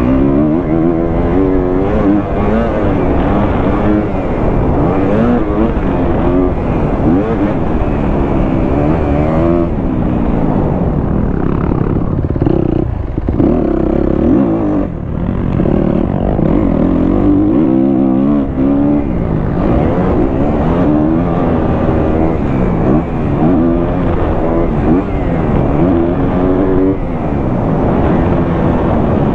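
2023 Kawasaki KX250F's single-cylinder four-stroke engine with a Pro Circuit exhaust, ridden on a motocross track. Its pitch rises and falls over and over as the throttle is worked and the bike goes up and down the gears, with a brief drop about halfway through.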